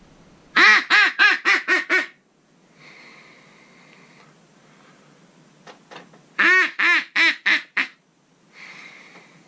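Haydel's Deceiver double-reed mallard duck call blown in two runs of loud, short quacks, five or six notes each at about four a second, each run fading slightly toward its end. The first run starts about half a second in and the second about six and a half seconds in.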